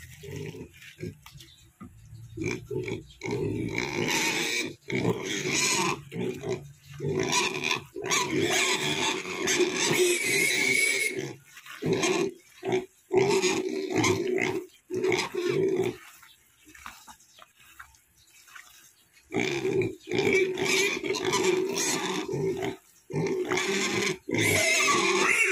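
Duroc × Large White pigs squealing and grunting in repeated outcries of a second or two each, with a pause of about three seconds past the middle: hungry pigs calling out at feeding time while their wet feed is mixed.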